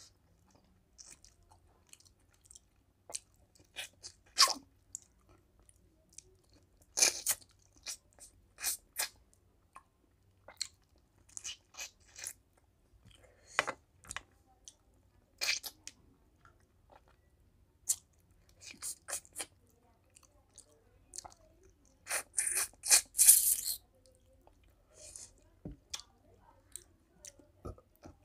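Close-up mouth sounds of a man eating rice and mutton curry by hand: chewing with irregular wet smacks and clicks, and a denser run of loud ones about two-thirds of the way through.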